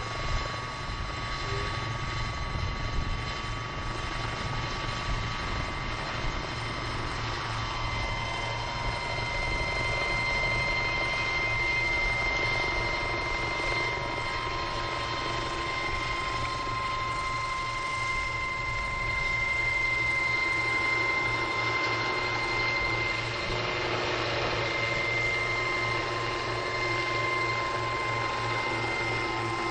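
Radio-controlled scale Bell 222 model helicopter running with its rotor turning and lifting into a low hover, the audio slowed to half speed. A rapid low rotor chop runs under a steady high whine, growing slightly louder as it lifts.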